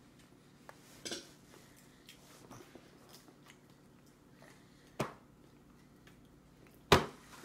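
A baby's hands knocking on a plastic high-chair tray: three sharp knocks, the loudest near the end, over a quiet room.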